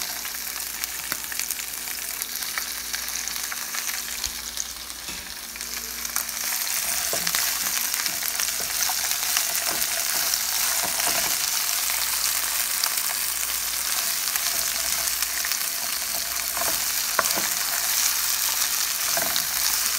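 Asparagus spears sizzling in hot olive oil and garlic in a frying pan on fairly high heat, the sizzle growing louder about six seconds in. A wooden spatula stirring them adds light scrapes and clicks.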